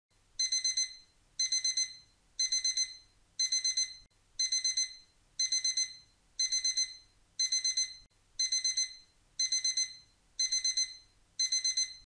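Digital alarm beeping: quick groups of four high-pitched beeps, repeating about once a second, signalling that the countdown timer has reached zero.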